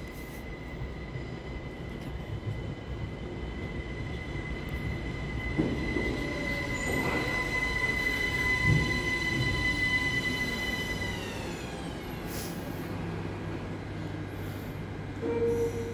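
ÖBB Cityjet electric multiple unit running into an underground station and braking to a stop, with some rumbling wheel knocks on the way in. Its drive gives a steady high whine that glides down and dies away about eleven seconds in as the train halts, leaving a low steady hum.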